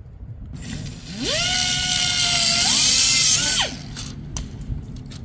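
A small high-speed power tool, like a rotary tool or drill, spinning up with a rising whine, running steadily, stepping up in speed once, then winding down and stopping.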